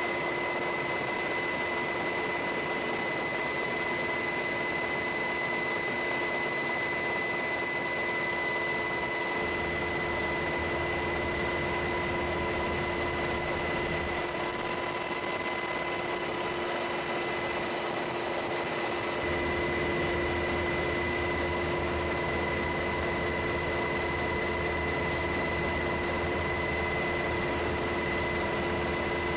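Steady drone of an aircraft's engines heard from on board: a constant rushing noise with several steady whining tones. A low rumble joins in about nine seconds in, drops away around fourteen seconds and comes back around nineteen seconds.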